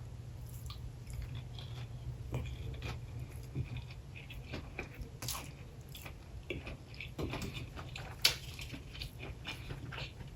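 Close-up chewing of a fried ball coated in crushed hot Cheetos: irregular soft crunches and wet mouth clicks, with a few sharper crunches about five and eight seconds in, over a steady low hum.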